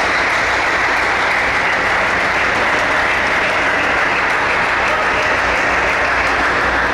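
Steady applause and clapping in a large hall, easing off near the end.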